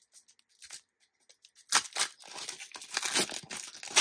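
A sealed trading card pack's wrapper being torn open and crinkled by hand. The rips and crinkles start a little under two seconds in, after a near-quiet start with a few faint ticks.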